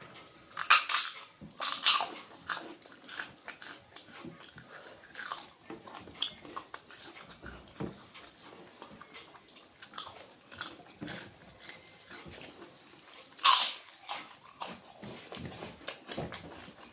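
Close-up eating sounds: chewing and crunching food, with many small mouth clicks and a few louder sharp crunches near the start and about two-thirds of the way in.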